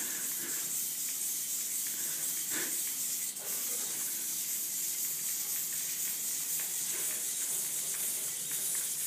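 Steady high-pitched hiss, with a couple of faint soft knocks about two and a half and three and a half seconds in.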